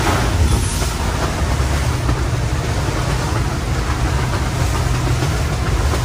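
Monterey 335 Sport Yacht's engines running under way, a steady low drone, under a constant rush of wind and water in heavy seas, with a brief louder rush near the start.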